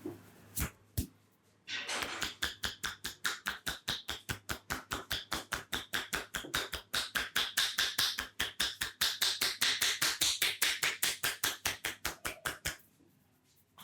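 Rapid hand percussion of an Indian head massage: the masseur's hands strike the head in an even run of sharp taps, about five or six a second, after two single taps. The taps grow louder partway through and then stop.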